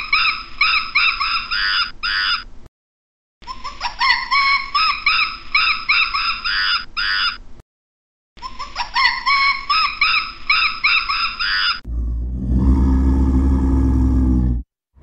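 Macaque calls: a burst of high, rising-and-falling squeals and chatter, played three times over with short gaps. Near the end, a leopard gives a low growl about three seconds long.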